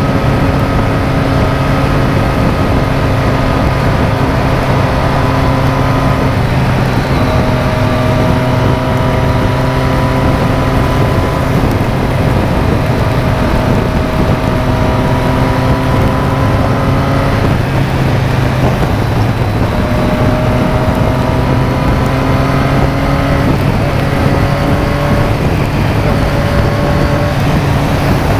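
Motorcycle engine pulling along at highway speed, its pitch drifting and changing step a few times as the rider shifts and accelerates, over a steady rush of wind and wet-road noise.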